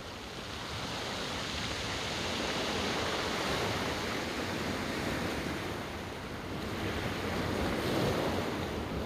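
Ocean surf breaking and washing over a rocky shoreline, swelling louder about three seconds in and again near the end.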